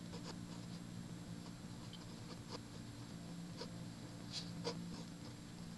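Pen writing on lined notebook paper: faint, scratchy, irregular strokes as a phrase is handwritten, over a steady low hum.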